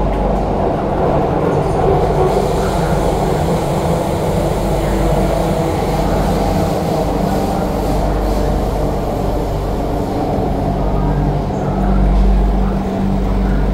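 MTR Island Line Q-Train in motion, heard inside the passenger car: a steady rumble of wheels and running gear with a low hum that swells a little near the end.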